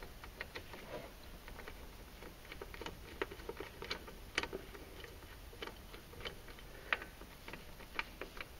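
Faint, irregular light metallic clicks of a ratchet and socket as the left-hand-thread clutch nut is run down onto the clutch shaft.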